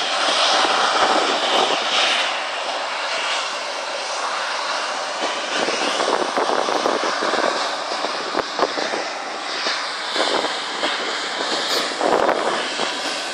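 Boeing 777-200 jet engines running as the airliner turns on the runway to line up for takeoff: a steady rushing jet noise, with a few brief knocks.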